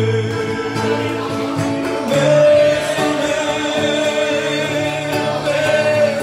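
Live acoustic performance: a man singing into a microphone with long held notes, accompanied by an acoustic guitar.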